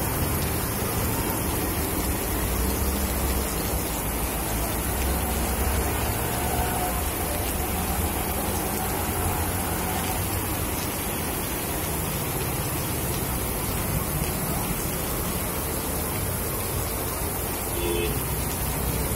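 Heavy rain pouring onto a street and tiled pavement: a steady hiss, with a low rumble underneath.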